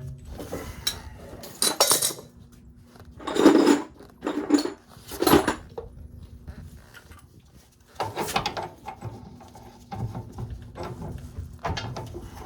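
Metal objects clattering and clanking in several short bursts over a faint steady hum.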